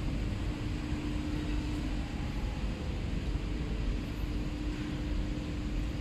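Steady low rumble and hum of factory machinery, with one steady mid-pitched tone held throughout.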